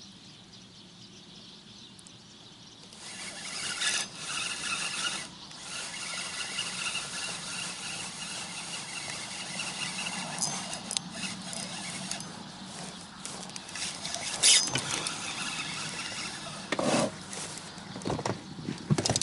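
Spinning reel being cranked during a jig retrieve, giving a steady squeaky whine, with a few sharp knocks along the way.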